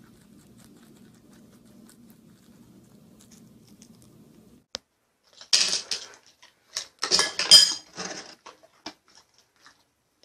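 A metal spoon clinking and scraping against a ceramic cereal bowl and mug on a wooden table, in several short clattering bursts over the second half. Before that there is only faint low background noise.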